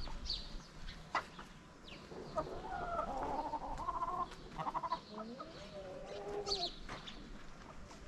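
Chicken clucking: a run of short, bending calls through the middle, with a few sharp clicks around them.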